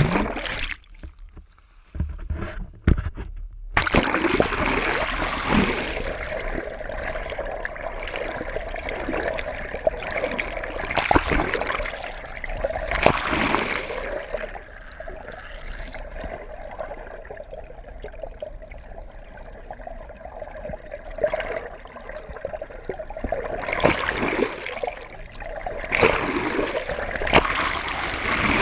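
Muffled underwater sound picked up by a GoPro in its housing: water rushing and gurgling around the camera, swelling and easing as it is moved, with bubbly splashes and a faint steady hum underneath.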